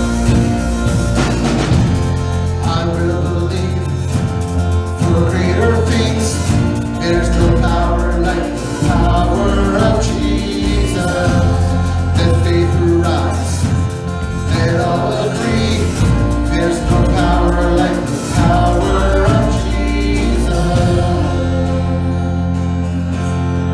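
Live worship band playing a Christian song: strummed acoustic guitars with a band behind them, under lead and harmony vocals. Near the end the singing drops out and the guitars play on.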